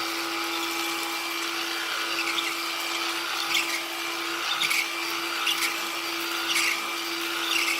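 Black+Decker 20V Max cordless stick vacuum running steadily on its low power setting with the brush roll on, a steady motor hum with short crackles about once a second as it picks up debris. The owner thinks it sounds as if the filter is a little plugged.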